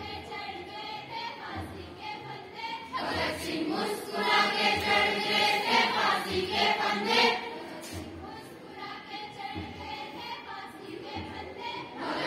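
A choir of voices singing a song to music, with a regular low beat underneath. The singing swells louder about three seconds in and eases back after about seven seconds.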